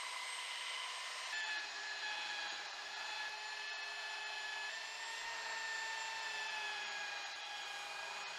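Ryobi belt sander running on an old painted wooden tabletop: a steady motor whine with the sanding belt rubbing on the wood. Its pitch dips slightly about a second in.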